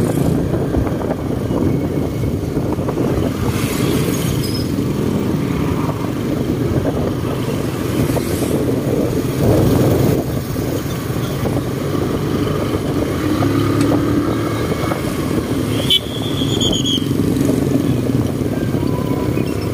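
Motorcycle running steadily while riding along a busy town road, its engine noise mixed with other passing motorcycles and tricycles. A short high-pitched tone sounds about sixteen seconds in.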